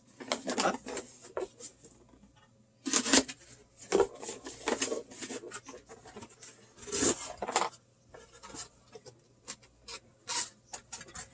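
Cardboard and plastic packaging rustling and tearing as a mystery box is unwrapped and opened: irregular scrapes and rips, the loudest about three and seven seconds in.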